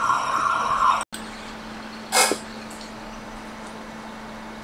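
Steady hiss of blowing air with a faint whine, which cuts off abruptly about a second in. After that a low steady hum, with one brief whoosh about two seconds in.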